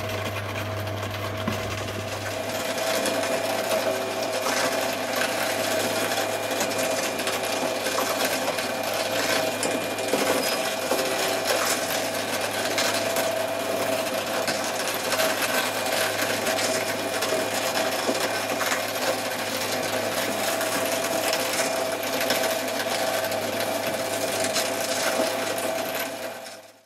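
Twin-shaft shredder running with a steady motor whine as its cutters grind up Kinetic Sand, with faint crackling through it. It grows a little louder about two seconds in and fades out at the end.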